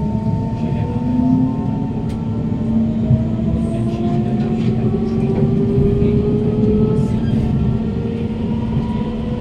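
Kawasaki Heavy Industries C151 train's GTO-VVVF traction motors whining as the train accelerates hard away from a station: several tones rise steadily in pitch over the low rumble of the wheels on the track, heard from inside a motor car.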